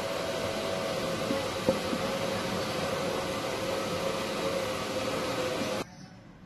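Steady machine-like hiss with a faint hum, cutting off suddenly near the end.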